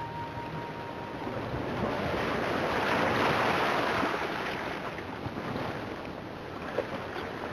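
The music's last held note dies away in the first half second. A rushing wash of surf follows, swelling to its loudest about three seconds in and then easing off, with a few faint ticks near the end.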